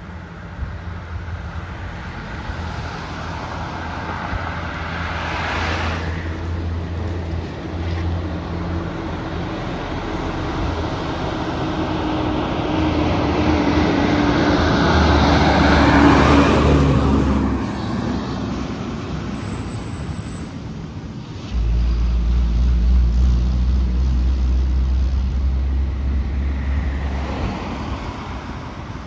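Fire engine driving past on the road: its engine and tyres grow steadily louder, peak as it passes a little over halfway through, then fade as it moves off. A low wind rumble on the microphone comes in suddenly in the last third.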